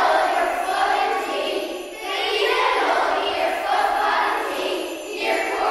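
A group of children's voices sounding together, in phrases about two seconds long with short dips between them.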